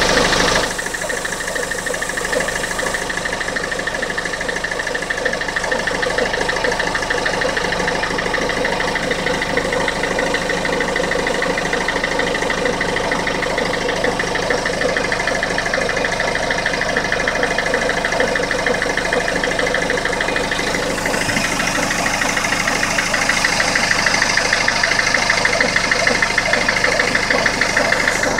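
Peugeot 407 HDi diesel engine running with a steady, fast rhythmic noise that the owner calls abnormal and cannot place, heard after the timing belt was changed. About three-quarters of the way through the noise grows louder and sharper.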